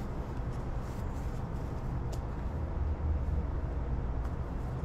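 Steady low rumble of outdoor background noise, with a faint click about two seconds in.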